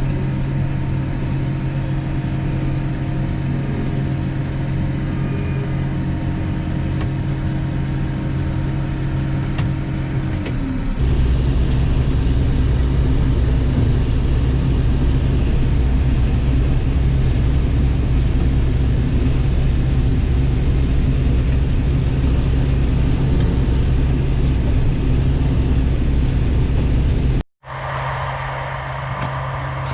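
Combine harvester running steadily with a loud low engine drone, its sound shifting abruptly about a third of the way in and cutting out briefly near the end before a similar drone resumes.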